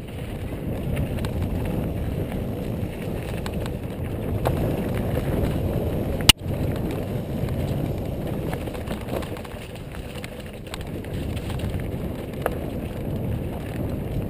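Mountain bike rolling fast downhill on a dirt trail: a steady rumble from the tyres and rattle from the bike, with one sharp, loud click about six seconds in.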